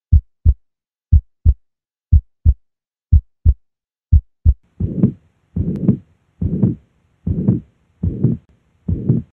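Stethoscope recording of normal heart sounds: paired lub-dub beats about once a second. A little under five seconds in it switches to a pericardial rub, a longer, rougher rubbing sound with each beat, the sign of pericarditis, where the thickened, roughened layers of the pericardium rub together.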